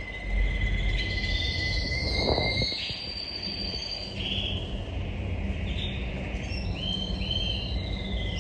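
Red-factor canary singing: a continuous run of fast trills and held high notes, over a steady low background hum.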